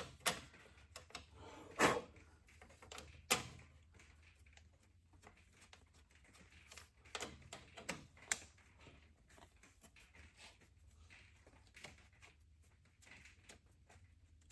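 Scattered sharp metal clicks and knocks as steel injector lines and their fittings are handled and set onto a diesel tractor engine, the loudest about two and three seconds in.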